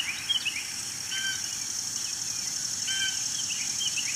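Birds chirping outdoors, with repeated short falling chirps and two louder calls about one and three seconds in, over a steady high-pitched hiss.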